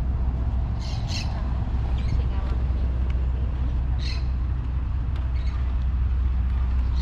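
City street ambience: a steady low traffic rumble, with a few short high squawks about a second in and again about four seconds in.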